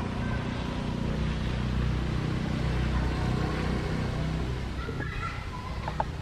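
A steady low engine hum. A few short high chirps come about five seconds in, and a sharp click near the end.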